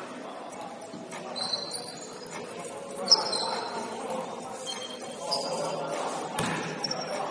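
Basketball being played in a gym: short high sneaker squeaks on the court, a ball bouncing and players' voices, echoing in the hall.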